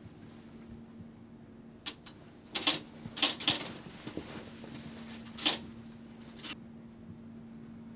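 Typewriter keys clacking in a few short, irregular bursts over a steady low electrical hum.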